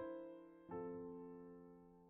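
Soft background piano music: a chord struck at the start and another a little under a second later, each ringing and fading slowly.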